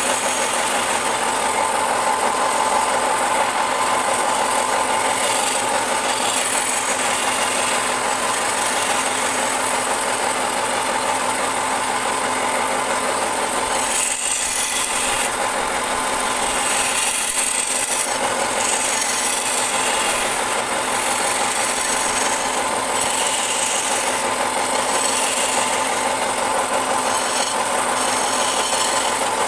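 Wood lathe running while a hand-held turning tool cuts into a spinning wooden vase blank: a steady scraping hiss of shavings over the machine's running noise.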